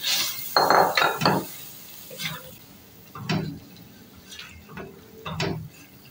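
A spoon scraping and knocking against a metal cooking pot in irregular strokes, stirring minced meat into the masala.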